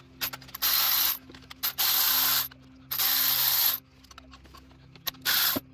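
Milwaukee M12 cordless power tool run in four short bursts, spinning out E14 E-Torx bolts. The last burst is the shortest.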